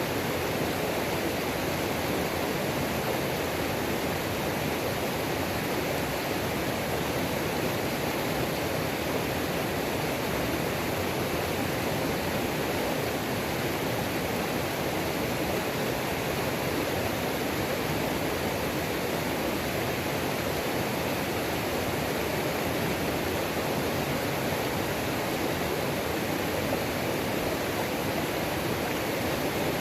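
Waterfall on a mountain creek: a steady, even rush of falling water.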